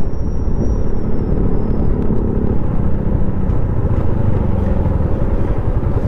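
Road vehicle on the move: a steady, loud low rumble of engine and wind noise.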